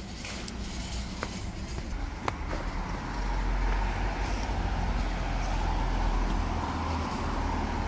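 Street traffic: a car drives past close by, its engine and tyre noise swelling about three seconds in and staying loud, over a low rumble. A couple of small clicks come early on.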